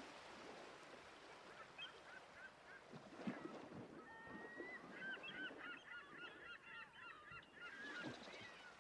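Faint flock of birds calling: many short, wavering calls that thicken from about halfway through, over a steady hiss, with one soft knock about three seconds in.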